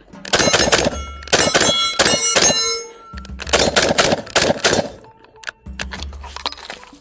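Springfield Hellion 5.56 bullpup rifle fired in three quick strings of shots, with clear metallic ringing after the middle string. Only a few faint clicks follow near the end.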